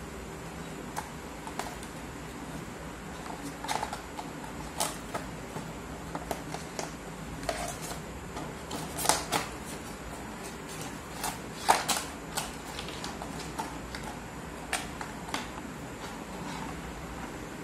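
Irregular clicks, taps and light rattles from neckband earphones and their plastic packaging tray being handled, with the loudest clicks a little past the middle.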